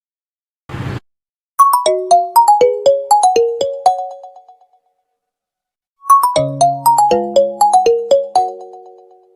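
Mobile phone ringtone: a short buzz, then a quick melody of short notes that ring out and fade. The melody plays twice, and the second time low bass notes come in under it.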